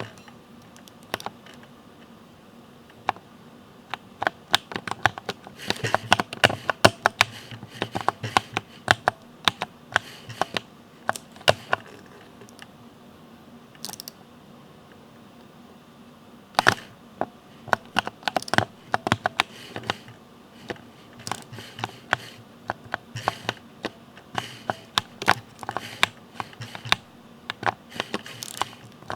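Typing on a Ducky mechanical keyboard with Cherry MX switches: quick runs of crisp key clacks, with a lull of a few seconds about halfway through.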